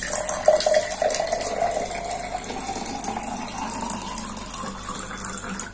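Water pouring in a steady stream into a clear drinking glass, splashing, with a ringing pitch that rises slowly as the glass fills.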